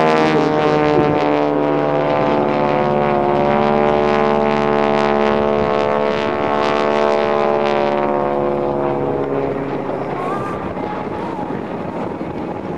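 North American T-6 Texan's Pratt & Whitney R-1340 radial engine and propeller droning as the plane flies by, the pitch dipping slightly as it passes. The sound then fades away over the last few seconds.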